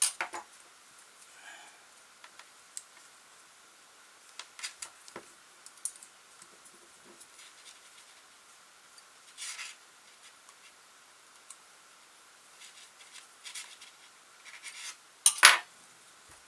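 Scattered light metallic clicks and scrapes of a small tool and metal parts as a brushed motor is loosened on its mount and shifted to set the pinion-to-spur gear mesh. The loudest clack comes about a second before the end.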